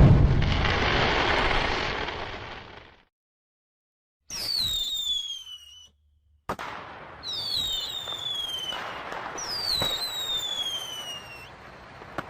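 Fireworks. The rumbling tail of a big burst fades out over the first three seconds. After two short spells of dead silence, several whistling fireworks sound, each whistle falling in pitch, among sharp pops and crackling.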